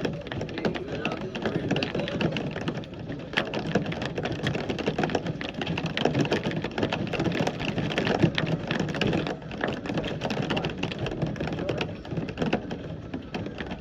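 Heavy rain pattering hard and steadily, a dense patter of drops striking a surface.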